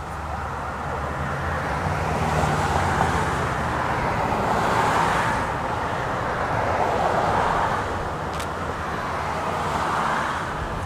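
Vehicle noise: a steady rushing that swells and fades several times, over a low hum.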